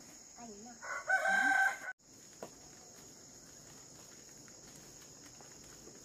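A rooster crows once, briefly, about a second in, and this is the loudest sound. After it comes a steady high chirring of crickets.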